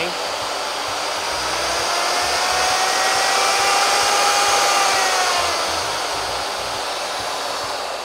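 Ryobi 2-horsepower plunge router running free, held off the work at its slowest speed setting. Its soft start brings the motor whine up gradually over the first few seconds, and it winds down in the last couple of seconds.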